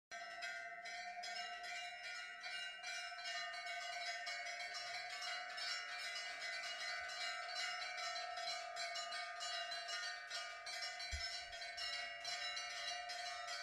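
Temple bells ringing continuously, struck again and again in quick succession so that their ringing tones overlap.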